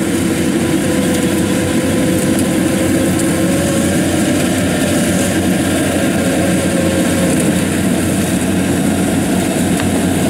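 Kubota DC70 combine harvester running steadily at working load as it cuts and threshes lodged rice.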